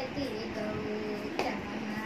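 A girl singing a Tamil devotional song in Carnatic style over a steady drone, with one sharp hand clap about a second and a half in keeping the tala.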